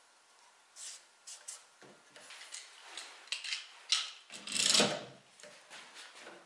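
Metal screw clamps being slid on and tightened against a wooden cabinet edge: a string of short clicks and knocks, with a louder scrape of about half a second a little past the middle.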